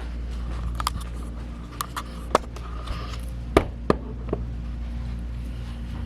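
A handful of short, sharp clicks and knocks, as of cups or small objects being handled and set down, over a steady low hum. The two loudest knocks come close together a little past halfway.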